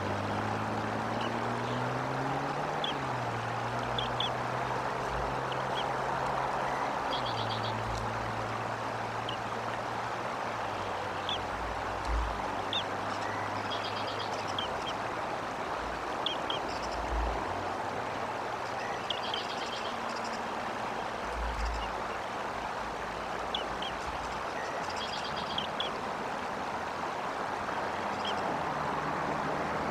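Steady outdoor rushing noise with short high bird chirps scattered through it and a few quick trilled calls. Under them runs a low hum that rises in pitch near the start.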